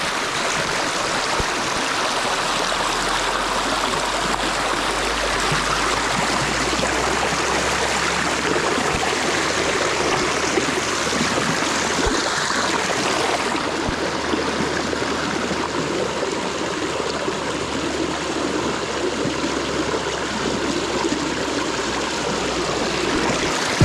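Shallow river water rushing and splashing over rocks close by, a steady even rush.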